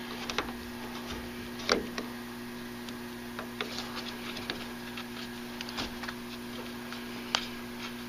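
Small clicks and ticks of a screwdriver working the slotted red plastic cap loose from the secondary drain opening of an air handler's drain pan. A sharper click comes about two seconds in and another near the end, over a steady low hum.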